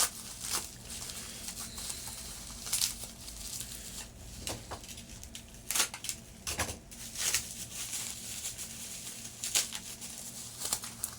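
Packaging wrapped around a watch being handled and pulled open: irregular crinkling, crackling and tearing of wrap.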